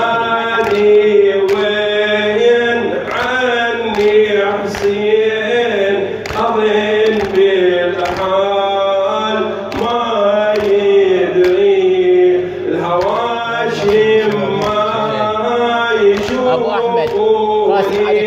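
A man's solo voice chanting a Shia nawha lament in Arabic through a microphone, in long, wavering held notes, over a steady beat of sharp strokes.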